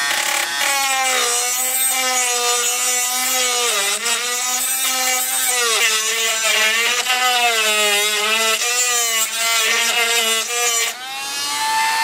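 Handheld rotary tool with a small bit grinding into a crack in juniper wood. Its motor whine drops low and wavers as the bit bears into the wood, then rises back up about eleven seconds in as the tool comes off the work.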